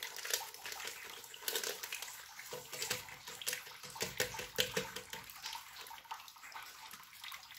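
Plastic agar-agar powder packets crinkling and rustling as they are shaken out over a steel pot of water, in quick irregular crackles.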